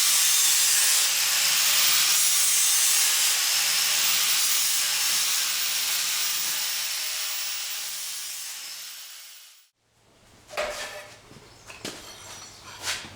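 A loud, steady hiss that tapers off over several seconds and stops abruptly, followed by a few light clicks and knocks.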